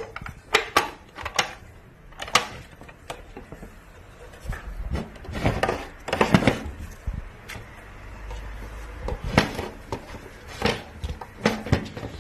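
Hard plastic crocodile-dentist toy clicking and knocking as an otter rummages in its mouth: irregular clicks and clatters, thickest about halfway through.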